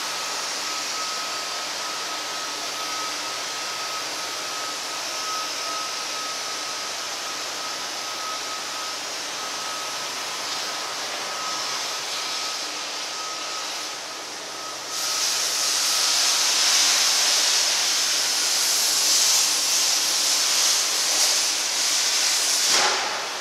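Steady hissing background noise with a faint high whine. About fifteen seconds in, a louder, sharper hiss takes over, then drops away near the end.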